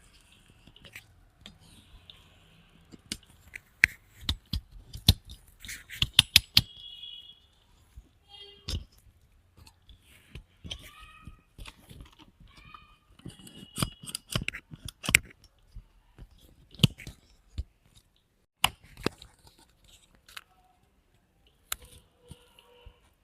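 Selfie stick and its plastic packaging being handled during unboxing: irregular sharp clicks, taps and crinkles, with a few short high squeaks.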